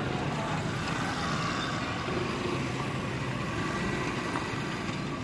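A vehicle engine running steadily amid continuous background noise.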